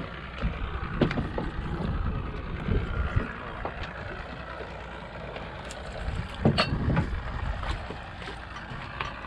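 Wind rumbling on the microphone and water sloshing against a small boat's hull at sea, with a few sharp knocks and clicks from handling fishing tackle, the loudest about six and a half seconds in.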